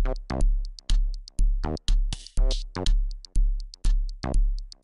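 Electronic background music with a steady drum-machine kick about twice a second, high hi-hat ticks between the beats, and short synth notes.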